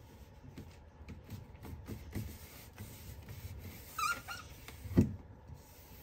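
Rubber fridge door gasket being pressed back into its groove by hand: soft rubbing and light knocks, a short rubber squeak about four seconds in, and a sharp knock about a second later.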